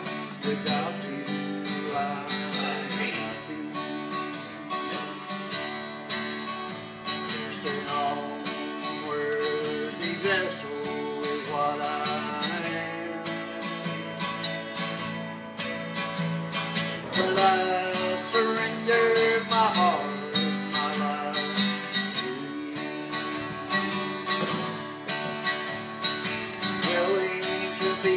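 Acoustic guitar played solo, its chords strummed and ringing on in a steady flow.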